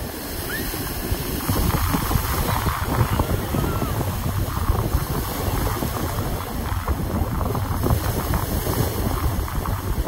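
Small waves washing up over sand at the shoreline and draining back, with wind buffeting the microphone in a steady low rumble that grows about a second and a half in.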